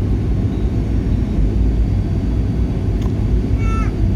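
Steady low rumble of airflow and engines inside a Boeing 737 airliner cabin on approach. Near the end comes a brief, high, slightly falling tone.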